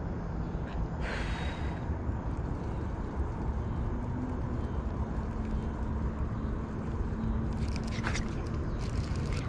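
Baitcasting reel being cranked on a lure retrieve under a steady low rumble of wind and handling noise, with a brief rush of noise about a second in and a run of scrapes and clicks near the end.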